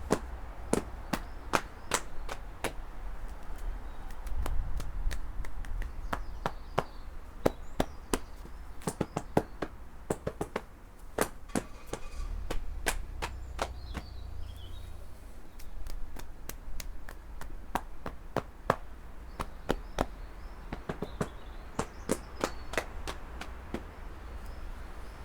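Open hands slapping the body in a qigong strengthening exercise: a run of sharp slaps, about two a second, in an uneven rhythm.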